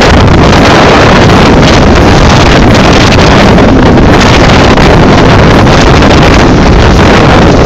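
Heavy, steady wind buffeting the phone's microphone as a bass boat runs across the lake at speed, loud enough to overload the recording, with the hull and outboard running under it.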